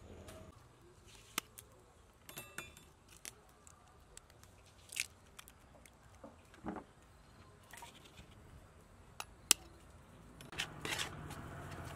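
Sparse light clicks and taps of eggs being cracked into a metal bowl of flour, with one sharp crack of an eggshell a little before the end. A faint low hum comes in near the end.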